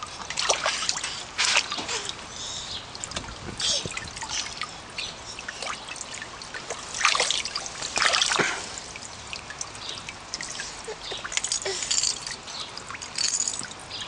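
Water splashing and trickling in a paddling pool as a baby splashes about: irregular splashes, the two biggest about halfway through.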